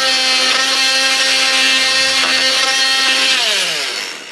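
An electric power tool cutting baseboard trim to height. Its motor runs at a steady pitch under a noisy cutting sound, then winds down with a falling whine near the end.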